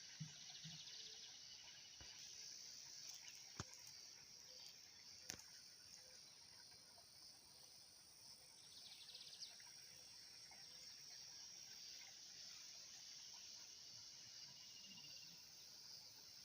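Faint, steady high-pitched insect chorus, with a few sharp clicks about three and a half and five seconds in.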